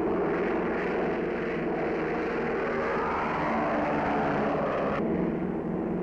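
De Havilland Mosquito's twin piston engines droning as the bomber flies past, the pitch sweeping down about halfway through as it passes overhead.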